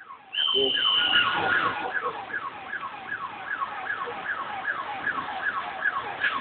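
Emergency vehicle siren sounding a fast, repeating falling wail, about two and a half cycles a second. A rush of noise starts about a third of a second in, with a brief high steady tone over it near the start.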